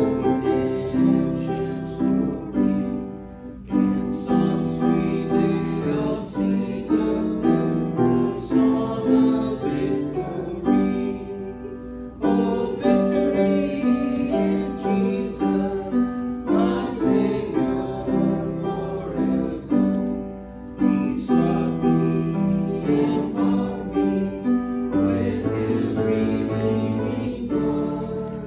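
Piano playing a slow hymn tune in chords, each note struck and left to ring.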